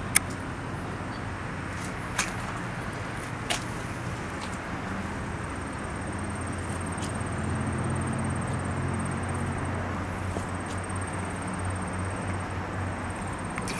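A motor vehicle engine running with a steady low hum that swells slightly midway, over outdoor background noise, with a few sharp clicks in the first few seconds.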